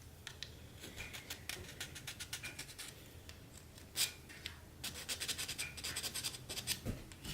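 Small hand file rasping against a plastic statue peg in quick, uneven strokes, shaving it thinner so it fits into its base. Brief pause a few seconds in, then a single knock, then faster strokes.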